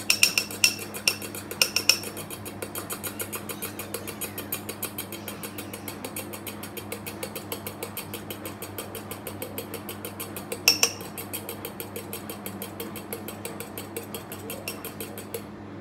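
Metal teaspoon whipping dalgona coffee (instant coffee, sugar and water) by hand in a small bowl: a rapid, even clicking of the spoon against the bowl, louder for the first couple of seconds, with one sharper clink about eleven seconds in.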